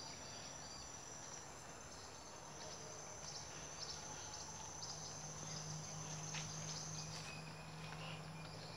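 Faint, steady high-pitched chorus of insects, with a few short ticks and a low hum underneath.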